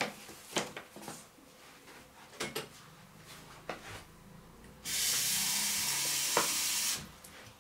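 Paper rustles and light taps of a kitten moving about inside a brown paper shopping bag. Then, about five seconds in, a loud steady hiss of unclear source starts abruptly and cuts off just as abruptly about two seconds later.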